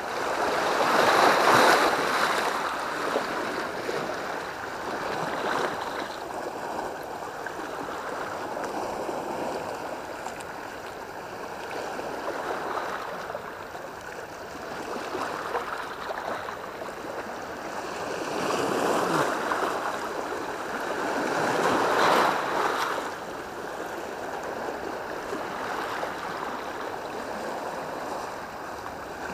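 Sea waves washing against the rocks at the foot of a concrete seawall, a steady rushing wash that swells louder about a second in and again about three-quarters of the way through.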